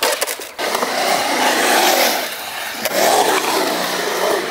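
Skateboard wheels rolling over concrete, a steady rough rumble that swells and eases, with a sharp clack at the very start.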